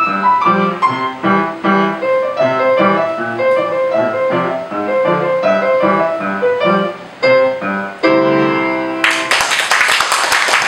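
A piano piece is played at a steady pace of notes and ends on a held chord about eight seconds in. Applause breaks out about a second later.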